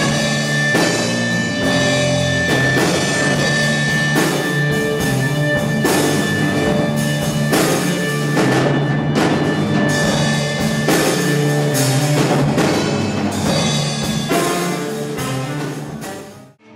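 Live rock band of electric guitar, drum kit and saxophone playing an instrumental passage, with regular drum strokes under sustained guitar and saxophone notes. The music fades out quickly near the end.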